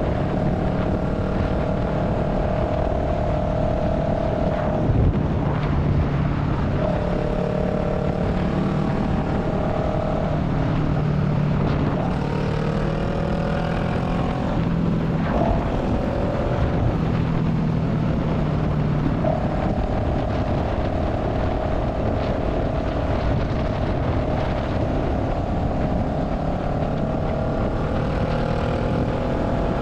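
Honda Rebel 500 parallel-twin through a Radiant Cycles Shorty GP slip-on exhaust, running steadily at highway cruising speed over a constant rush of wind and road noise. The engine note shifts in pitch briefly around the middle, then settles again.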